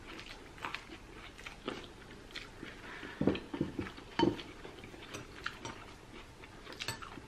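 Close-up eating sounds of rice noodles with clams: chewing, noodle slurping and small clicks of a spoon and chopsticks against bowls, with a couple of louder mouth sounds about three and four seconds in.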